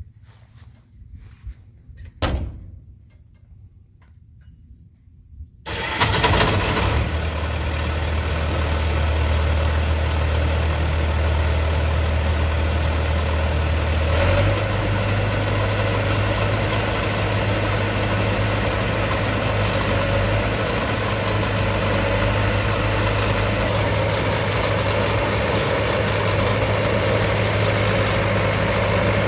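Large combine harvester diesel engine cold-starting: after a quiet spell with a single sharp click, it fires about six seconds in and settles into a steady idle. Its engine speed steps up about halfway through.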